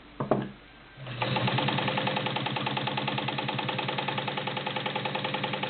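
Kenmore Model 84 all-metal 1.2 amp sewing machine stitching through three layers of garment leather. It starts about a second in and runs at a steady speed with an even, rapid beat of needle strokes, going through the leather without a hitch.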